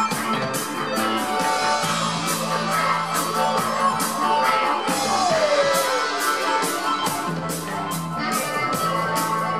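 Live rock band playing: harmonica over electric guitar, bass guitar, drum kit with steady cymbal strokes, and electronic keyboards. A sliding note falls in pitch about five seconds in.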